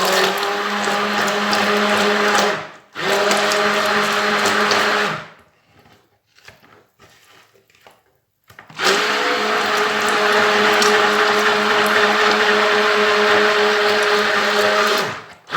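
Electric mixer running with a steady motor hum, beating warm melted margarine and honey. It stops briefly about two and a half seconds in, runs again, goes quiet for about three seconds apart from faint clatter, then runs for about six seconds more and stops near the end.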